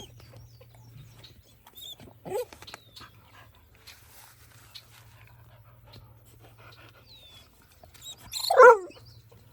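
A young male American Pit Bull Terrier, almost 8 months old, whining twice: a short whine about two seconds in and a louder, wavering one near the end.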